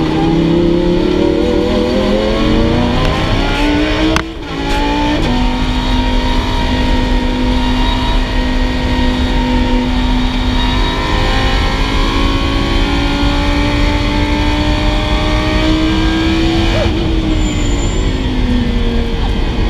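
Lamborghini Huracán's V10 heard from inside the cabin under hard acceleration on track. Its pitch climbs, breaks off for an upshift about four seconds in, then holds a long, slowly rising pull before falling in pitch near the end.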